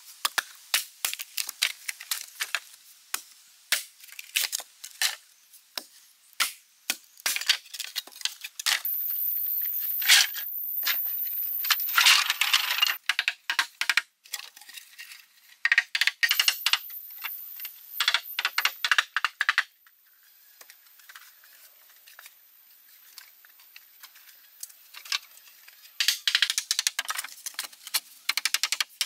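Green bamboo being worked by hand: sharp hollow knocks and cracks as a machete splits a bamboo section and bamboo poles clack together while being laid and tapped into a floor, many strikes in quick, uneven succession. A louder rasping stretch comes about ten seconds in, and a thin high whine comes and goes.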